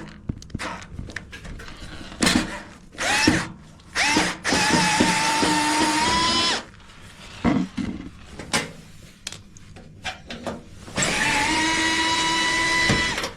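Cordless screwdriver undoing screws from a washing machine's cabinet: a few short blips, then two steady runs of about two seconds each, the motor whine rising in pitch as each run starts.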